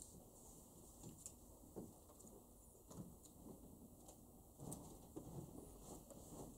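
Near silence: room tone with faint, scattered small clicks and rustles.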